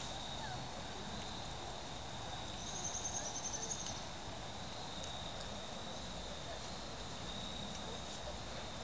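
Steady high-pitched insect drone, with a brief rapid trill about three seconds in.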